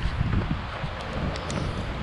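Wind buffeting a body-worn GoPro's microphone as the wearer runs: a steady low rumble and hiss, with a few light clicks.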